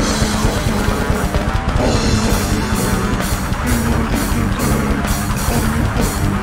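Death metal band playing live: a distorted electric guitar riff over bass and drums. From about two seconds in, the cymbals strike on a steady beat, about three times a second.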